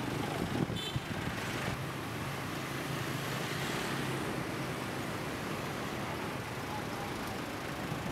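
Street traffic: a steady wash of motorbike and vehicle engines running, with a brief sharp, high sound under a second in.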